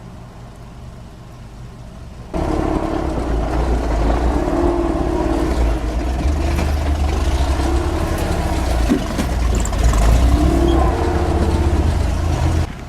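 Off-road Jeep engine running quietly, then after about two seconds much louder revving that rises and falls in pitch while it works up the rocks, with a heavy low rumble throughout.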